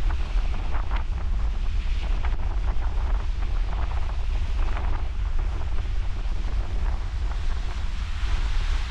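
Ocean surf breaking and splashing during a king tide, with wind buffeting the microphone as a constant low rumble.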